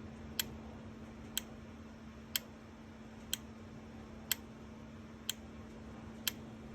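Williams Pinbot pinball machine solenoids firing one after another in the solenoid test, a sharp click about once a second, seven in all, each coil on the A and C sides being pulsed in turn. A faint steady hum runs underneath.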